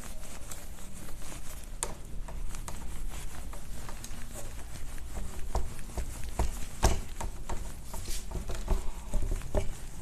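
Whiteboard eraser being scrubbed across a whiteboard in quick, irregular strokes, with a few louder knocks among them.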